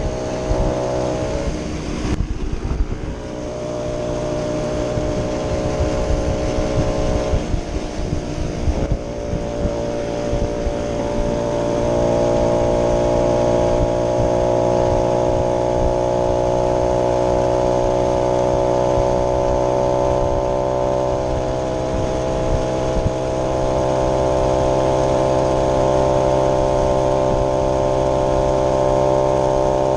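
Small two-stroke moped engine running under way, one continuous engine note. The note breaks briefly about two seconds in and again around eight or nine seconds, then picks up and holds steady at a higher, louder pitch from about twelve seconds on.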